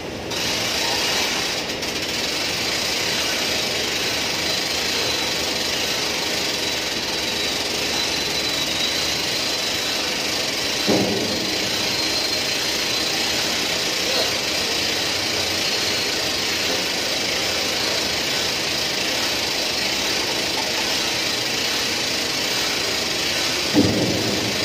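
Duct lift's winch running steadily as it raises a section of sheet-metal ductwork, a continuous mechanical noise with a faint high whine. Two brief low bumps, about halfway and near the end.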